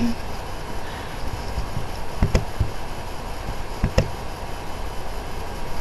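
A few short sharp clicks, about two seconds and four seconds in, over a steady low hiss and rumble.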